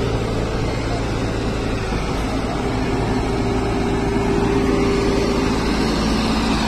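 Tumosan 8195 tractor's diesel engine running under load with a steady drone as the tractor, its rear wheels dug into a pit of loose soil, works to climb out.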